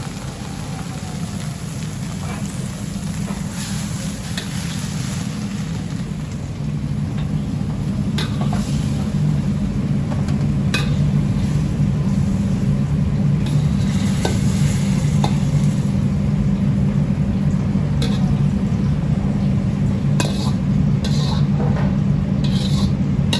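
Vegetables stir-frying in a pan, with a hissing sizzle and scattered knocks and scrapes of a spatula against the pan over a steady low hum. The clatter grows busier near the end.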